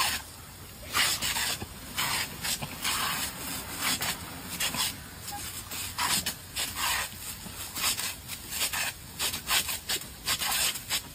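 Sprinkler water jet hissing and splashing while dogs bite and snap at the spray, heard as a run of irregular short splashy bursts over a steady hiss.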